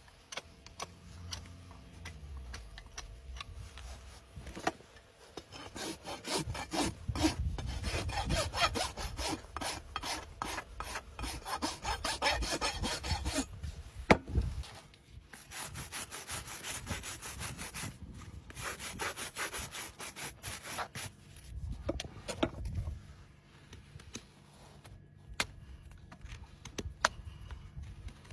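Farrier's rasp being drawn back and forth across a horse's hoof wall in quick repeated scraping strokes, in two long runs with a short break, and a single sharp click in the break.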